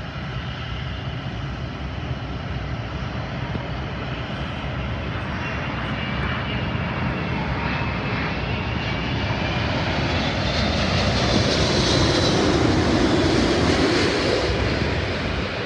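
Emirates Airbus A380's four jet engines on final approach, growing steadily louder as the airliner comes in low overhead. The engines' whine slides in pitch as it passes, and the sound is loudest about twelve to fourteen seconds in, then eases.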